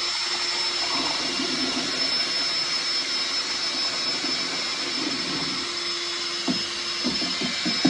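Electric drill fitted with a whisk, running steadily to mix calf milk replacer powder into hot water in a plastic basin: an even motor whine with the churning of the mix. A few short knocks come near the end.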